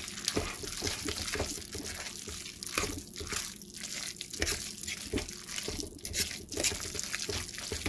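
A metal spoon stirring shredded deer meat in barbecue sauce in a slow-cooker crock: wet, sloppy stirring with irregular clicks and scrapes of the spoon against the crock.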